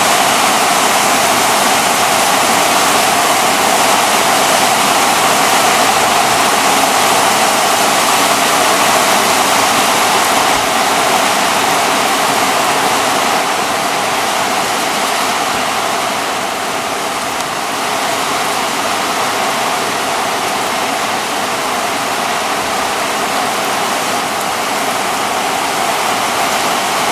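Heavy downpour in a thunderstorm: rain pouring onto the street and parked cars as a loud, steady rushing hiss, a little quieter from just past the middle.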